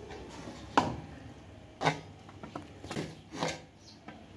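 Metal spoon knocking and scraping against a metal cooking pot and a steel tray as cooked dal mixture is scooped out: a few sharp clinks, the loudest about a second in.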